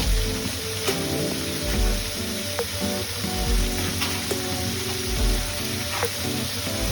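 Pork belly and tofu sizzling as they stir-fry in a frying pan, with background music carrying a steady low beat about every second and a half.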